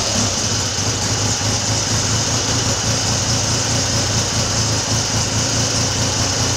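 Triumph Trident T160's three-cylinder engine ticking over at a steady idle. Its pilot air screw has been adjusted to cure a lean mixture that had made it cut out.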